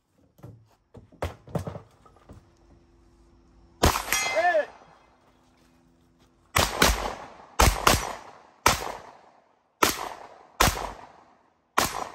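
A string of gunshots from a shooter working through a 3-gun stage: one loud shot about four seconds in, followed by a ringing steel target, then a quick run of about eight shots in the second half. A few fainter knocks come in the first two seconds.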